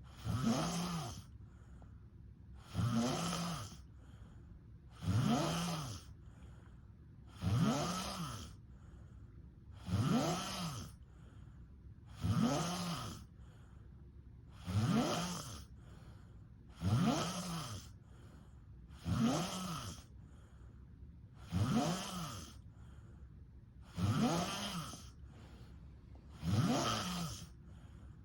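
A sleeping person snoring in a steady rhythm, a loud snore about every two and a half seconds, each rising and then falling in pitch.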